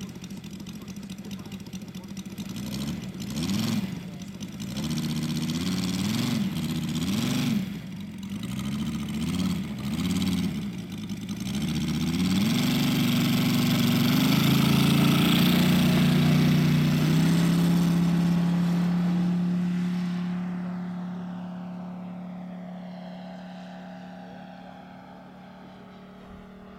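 Moki 180 four-stroke radial engine in a quarter-scale RC Yak-11 model. Its revs rise and fall in repeated throttle blips during taxiing, and about twelve seconds in it is held at high power for the takeoff run. It then drops in pitch and fades as the plane climbs away.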